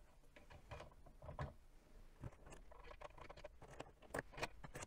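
Faint, scattered clicks and taps of spring-loaded steel tubes knocking against 3D-printed plastic gears and rollers as they are worked into place. A few slightly louder clicks come near the end.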